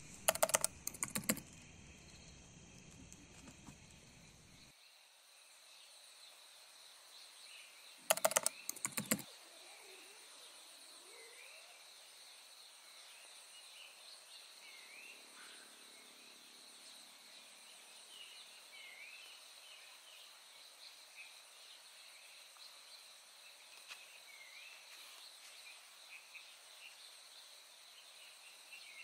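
Forest ambience at first light: a steady high insect drone with short bird chirps scattered through it. The loudest thing is a brief burst of rapid clicks about eight seconds in, with a few similar clicks at the very start.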